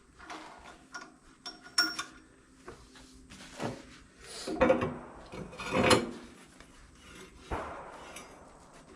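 Metal mower-deck caster parts being handled and fitted together on a workbench: irregular knocks and clunks, the loudest about four and a half and six seconds in.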